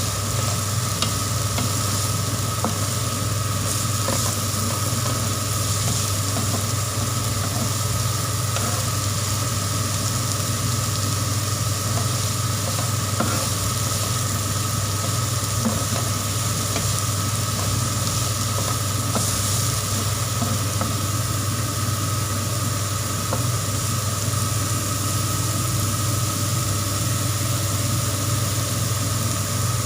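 Chopped mixed vegetables sizzling as they are stir-fried in oil in a pan, with a few light taps of the stirring utensil, over a steady low hum.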